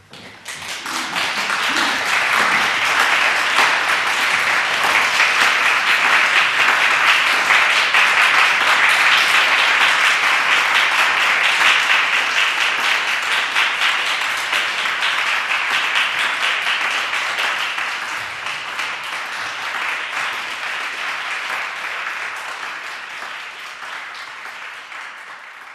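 Audience applauding: the clapping breaks out suddenly after silence, holds full and steady, then slowly thins out over the last several seconds.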